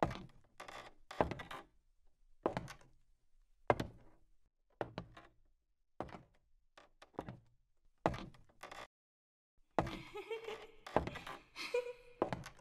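Heavy footsteps climbing a staircase, one thud about every second, each with a short echo; near the end the thuds come closer together, mixed with other handling noise.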